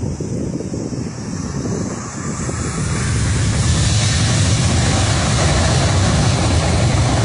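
Boeing 737-800's CFM56 jet engines at takeoff power, a steady loud noise that swells about three seconds in and then holds.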